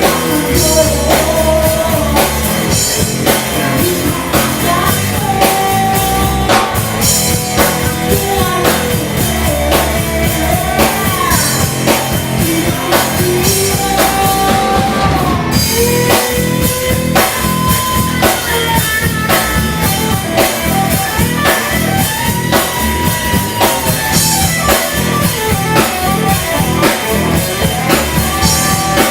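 A rock band playing live: a driving drum-kit beat with electric guitars and bass, and a melodic lead line weaving over it.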